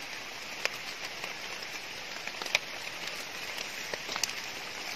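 Steady hiss of light rain falling on forest leaves and leaf litter, with a few sharp ticks as a knife blade digs into the litter and soil.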